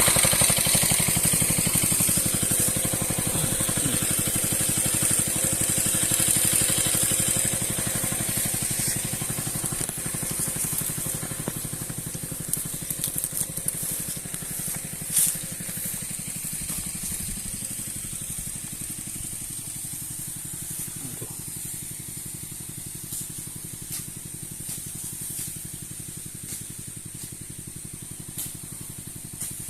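Small engine of a power sprayer running steadily, with the hiss of weed spray from the nozzle of a long hose. The spray hiss is strongest for the first several seconds, and the whole sound slowly grows fainter.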